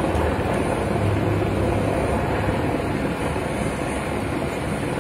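Wind of a small tornado blowing hard: a loud, steady rushing noise with a low rumble underneath.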